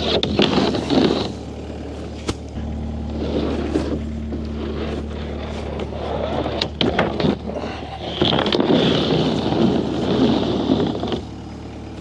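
An engine running steadily underneath, with three louder, noisy surges of working sound over it and several sharp knocks and clanks in between.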